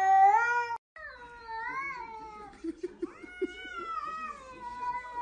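A grey tabby cat's loud, drawn-out meow, cut off just under a second in. Then a white fold-eared cat meows twice, more softly, the second call long and falling slightly in pitch.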